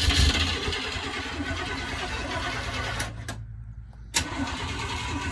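1972 Chevrolet Monte Carlo's V8 engine idling steadily with a running hiss, which briefly drops away just after three seconds in and comes back with a click.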